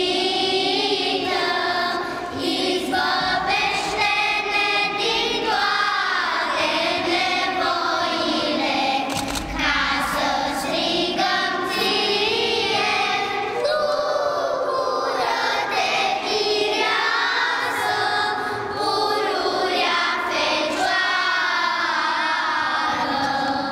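A children's choir singing a song together in unison, the young voices holding long, gliding notes with only brief breaths between phrases.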